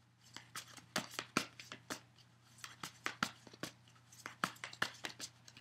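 A deck of tarot cards handled and shuffled by hand, giving a quick, irregular run of light slaps and clicks as the cards strike one another.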